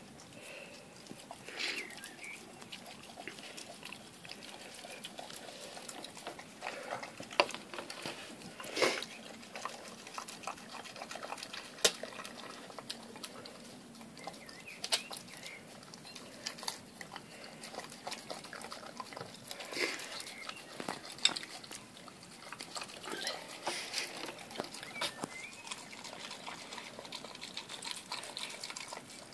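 Dog eating a wet meat-and-fruit mix out of a glass dish: continuous wet chewing and smacking, with occasional sharp clicks and knocks.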